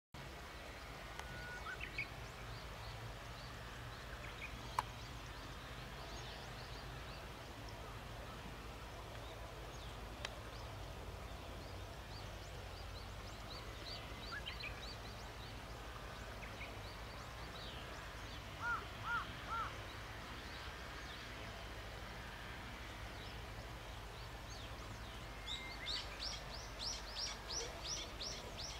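Outdoor rural ambience: a steady low rumble with birds calling now and then. There are three short calls a little after the middle and a quick run of high chirps near the end.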